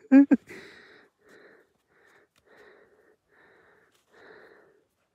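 Footsteps crunching on packed snow, an even walking rhythm of about one step every 0.7 seconds. A short shout of a man's voice comes at the very start.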